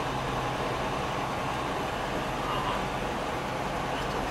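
Semi-truck cab noise on the road: the diesel engine's steady low drone under tyre and wind noise, with no change in pitch.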